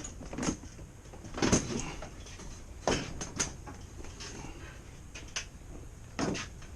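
Irregular knocks and clunks, about six over several seconds, from hands and tools working on an HVAC unit.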